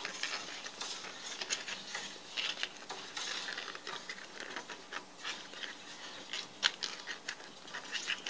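Flat spring-steel recoil spring of an upright fencing reel being wound by hand back into its container: irregular light clicks and scrapes of metal sliding against metal.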